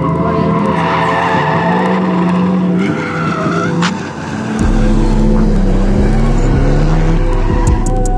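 Drift car engine revving up and down with tyres squealing as it slides. A deep, steady bass hum comes in about halfway through.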